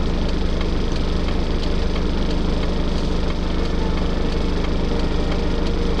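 Car engine and road noise heard from inside the cabin while driving: a steady low hum with a few faint clicks.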